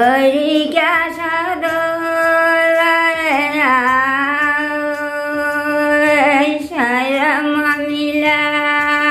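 An elderly woman singing an old folk song unaccompanied, in long held notes that bend and dip between phrases.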